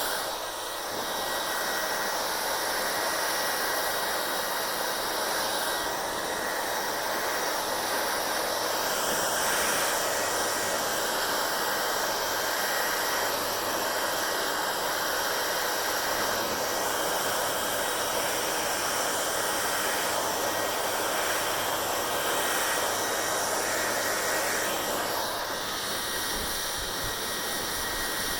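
Hand-held hair dryer running and blowing air: a steady rushing noise with a faint low hum underneath. The rush changes slightly in tone now and then as the airflow shifts.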